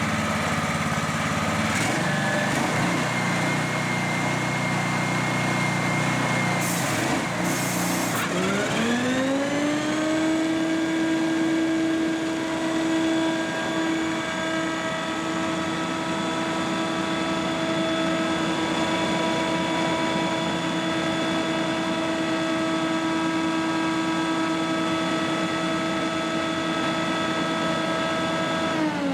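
Scag Windstorm stand-on leaf blower running, first at a low engine note, then spooling up about eight seconds in to a steady, loud whine that holds for some twenty seconds. The whine winds down at the very end.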